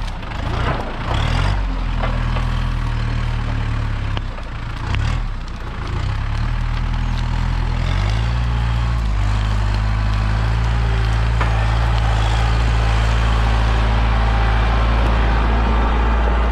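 Tractor engine running under load, its pitch and level shifting through the first eight seconds as it works, then holding a steady, slightly louder run.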